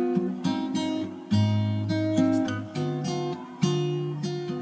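Background music with strummed acoustic guitar chords, a new chord struck about once a second.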